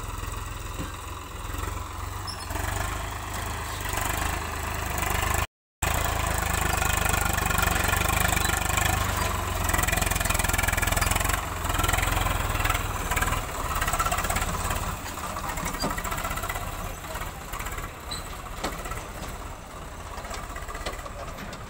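Diesel engines of farm tractors with loaded soil trailers running, along with a backhoe loader working. The sound cuts out for a moment about five and a half seconds in, then comes back louder.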